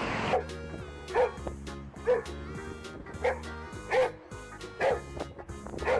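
A dog barking in short, sharp yips, about once a second, seven times, over background music with sustained notes.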